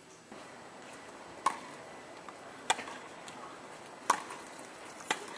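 Tennis racket strings hitting the ball in a baseline rally: four sharp strikes, about one every 1.2 to 1.4 seconds, with a few fainter ticks between them.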